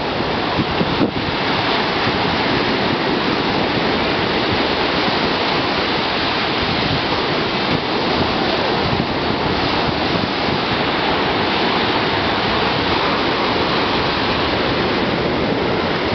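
Ocean surf breaking and washing onto the beach: a steady, even rush of water, with wind buffeting the microphone.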